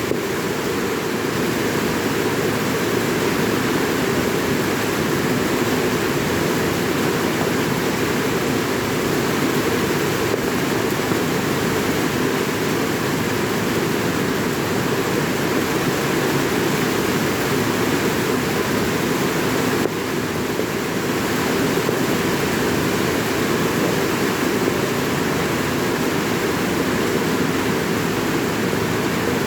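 Steady rainfall: an even, unbroken hiss with no separate drops standing out.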